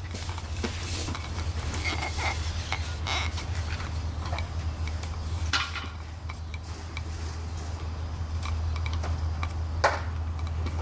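Light rustling and scattered small clicks of handling, with two sharper clicks, one about five and a half seconds in and one near the end, over a steady low hum.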